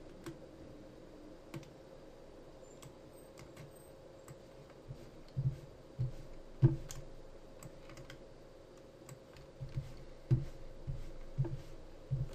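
Computer keyboard and mouse being used at a desk: irregular clicks and taps, heavier from about the middle on, over a faint steady hum.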